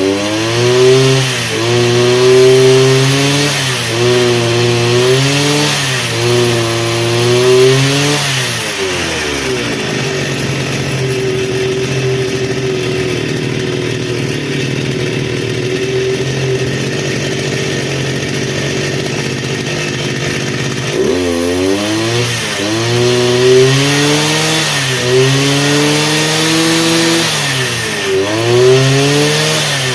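Stihl FS400 brush cutter's two-stroke engine being test-run after repair: revved up and down repeatedly for the first several seconds, settling to a steady idle for about twelve seconds, then revved up and down again.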